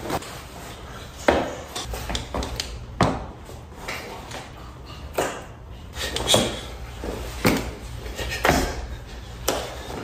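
Handling noise from a new leather jacket: a string of sharp knocks and light clinks, about once a second in the second half.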